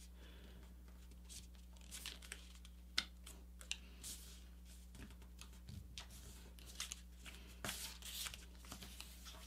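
A sheet of paper being folded and creased by hand: faint, scattered rustles and crinkles with a few sharper little clicks, one about three seconds in and a cluster near the end.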